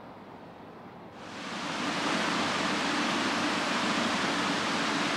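Steady rushing hiss with a low hum underneath from the plant of a nuclear power station, swelling up about a second in and then holding steady.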